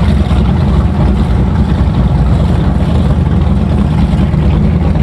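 Powerboat engines running at low speed as the boats cruise slowly past: a loud, steady, choppy low rumble.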